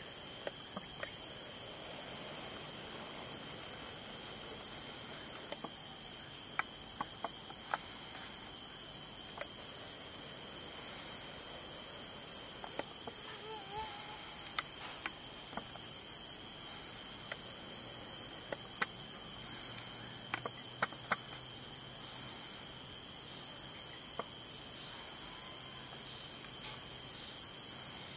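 Night insect chorus: a steady high-pitched drone with a pulsing, rhythmic trill just below it. A few faint clicks come here and there.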